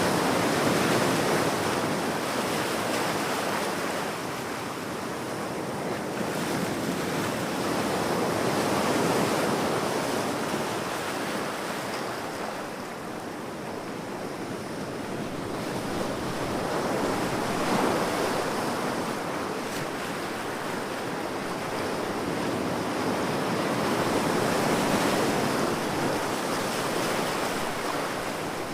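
Ocean waves washing ashore in slow swells: a steady rush of surf that builds and fades every several seconds.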